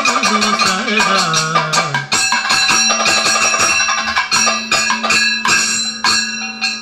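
Kathakali accompaniment: a singer's held line wavers and slides downward over a steady drone in the first two seconds. Drums and clashing bell-metal cymbals or gong strike rapidly and keep going after the voice stops.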